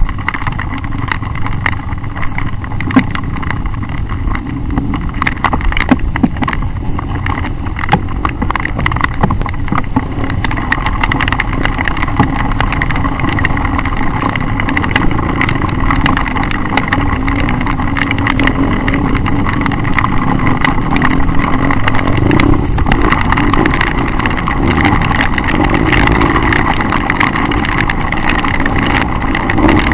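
Trail motorcycle engine running steadily at low speed along a rough dirt track, heard from a camera carried on the bike, with frequent sharp knocks and rattles from the ruts and bumps. The engine grows louder in the last several seconds.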